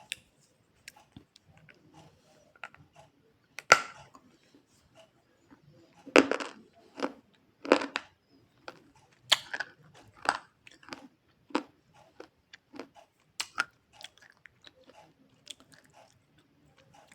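Close-up chewing of a hard white edible clay chunk ('white broken'): irregular sharp crunches as the teeth bite and break it, with a few louder cracks among smaller grinding crunches. The chunk is hard and breaks only with effort.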